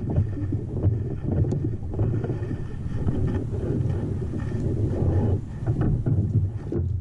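Wind buffeting the microphone of a camera on a sit-on-top kayak at sea: a loud, gusting low rumble that swells and dips throughout.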